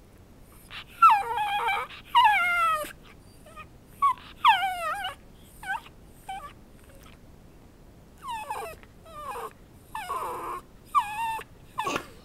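Pomchi (Pomeranian–Chihuahua mix) dog whining in a string of high cries, each falling in pitch, with a pause of about two seconds past the middle: begging for a piece of chicken held above him.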